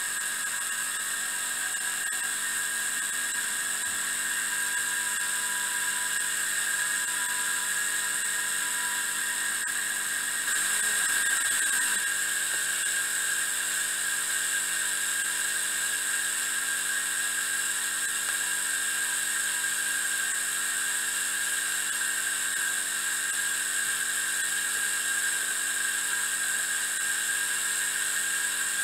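Miniature three-cylinder steam engine running fast: a steady high-pitched whir that swells slightly for a moment about a third of the way in.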